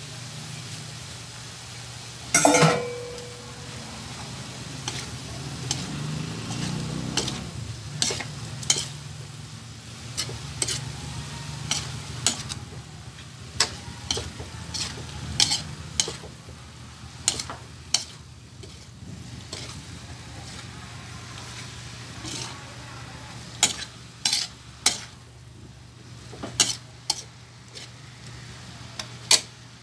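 Metal spatula clanking and scraping against an aluminium wok while ground pork and sliced hotdogs are stir-fried, over a steady sizzle. A loud clang with a brief metallic ring comes about two and a half seconds in, then sharp clanks follow about every second.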